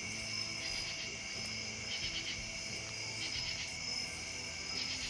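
Steady chorus of insects trilling continuously at several high pitches, cricket-like.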